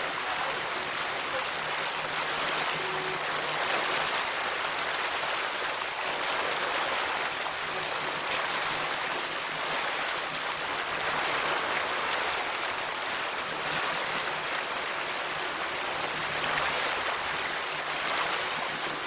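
1985 Sea Sprite Continental Mark II motorboat running across open water at speed: a steady rush of water and spray along the hull, with a low, even engine hum underneath.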